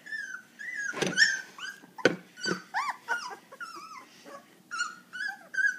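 Two-week-old puppies whimpering and squealing: many short high cries in quick succession, rising and falling in pitch. Two sharp knocks sound about one and two seconds in.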